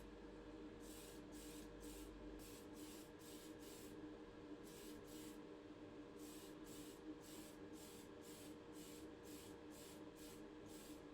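Aerosol can of Tamiya fine surface primer sprayed in many short, quick hissing bursts, with a pause in the middle. The sound is faint, over a steady low hum.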